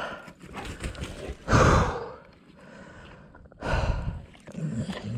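Heavy breathing close to the microphone: two loud, rough breaths, about a second and a half and nearly four seconds in, with fainter breaths between.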